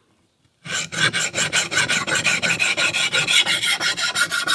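Knife blade rubbed back and forth rapidly across a coarse diamond sharpening hone. It makes a steady rasping scrape of many quick strokes, starting just under a second in.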